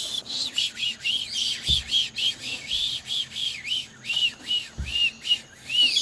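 A rapid run of short whistled chirps, about three or four a second, each rising and falling in pitch, that stops near the end.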